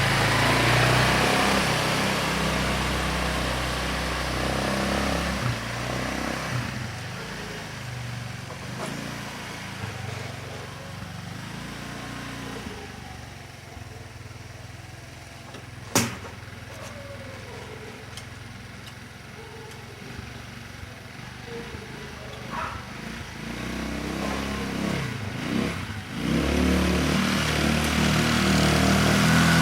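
150 cc ATV engine running: loud at first, fading over the first dozen seconds, then growing louder again toward the end. A single sharp click about halfway through.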